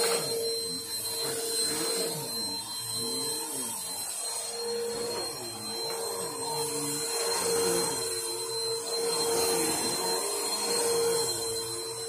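Bissell Helix Power Force upright bagless vacuum cleaner running while it is pushed back and forth over carpet. Its motor whine holds steady, while a lower hum rises and falls in pitch with the strokes.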